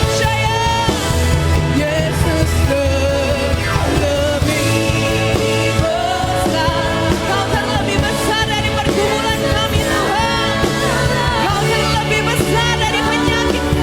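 Worship band playing a contemporary praise song, with singing over a full band of bass and drums at a steady beat.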